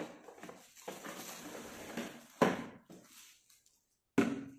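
Hard moulded-plastic chair parts being handled and set down on a stone floor, with plastic wrapping rustling. Two sharp knocks, about two and a half seconds in and near the end.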